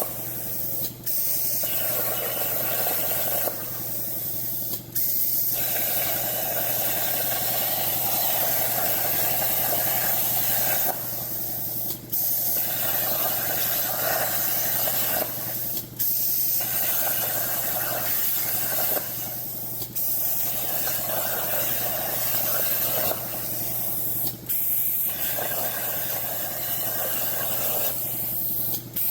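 CNC plasma cutter's torch cutting steel plate: a steady loud hiss of the arc and air jet, broken by short dips every few seconds.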